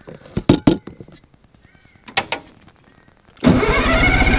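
A few sharp clicks and knocks from the camera being handled. About three and a half seconds in, a small bulldozer's engine starts abruptly and runs loudly.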